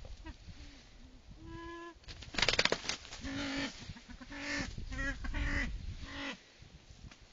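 Male silver pheasant giving a series of short, low calls, several in quick succession, as it confronts a person's boots in an aggressive mood. A quick burst of clicks comes a little past two seconds in, and rustling runs under the later calls.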